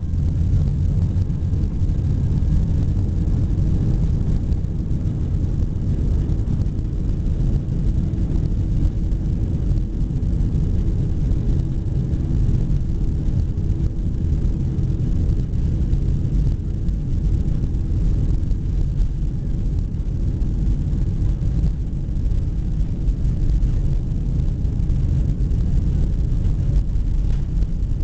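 TAM jet airliner's engines and airflow, heard from inside the cabin: a steady, unchanging low rumble with a few faint steady tones above it.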